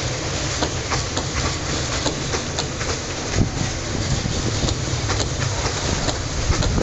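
Long train of open-top freight wagons rolling past: a steady rumble of wheels on rail, with irregular clacks as the wheels cross rail joints.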